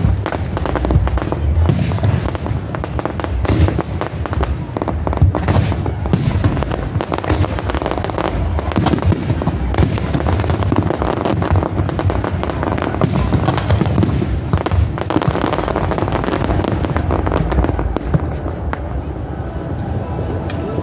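Fireworks display going off in quick succession: a dense run of crackles and bangs from aerial shells and low bursts, thinning out near the end.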